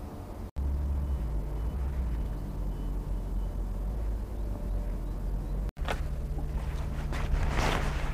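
A low, steady rumble with a faint hum. About six seconds in, rustling and handling noises start, loudest near the end.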